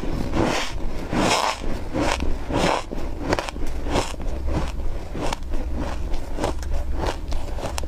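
Freezer frost being bitten and chewed: a run of quick crisp crunches and crackles, many to the second, over a steady low hum.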